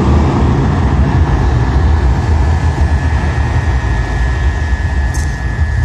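Aircraft engines running on the runway: a loud, steady low rumble with a thin high whine held over it.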